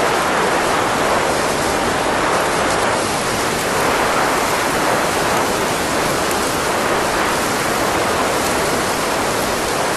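Steady rushing hiss of blowing air, a 'blow' sound effect with an even level.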